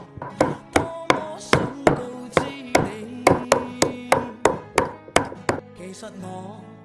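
A cleaver chopping a duck into pieces on a chopping board: a steady run of about fifteen sharp strikes, two or three a second, that stops near the end. Background music plays throughout.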